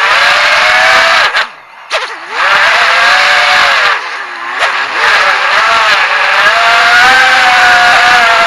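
Brushless motors of a GEPRC AX-5 racing quadcopter whining in flight, the pitch rising and falling with throttle, with brief throttle cuts about one and a half seconds in and again around four seconds, heard through the quad's onboard action camera.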